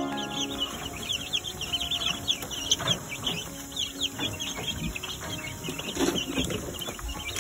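A brooder full of baby ducklings and chicks peeping: many rapid, high-pitched peeps overlapping one another.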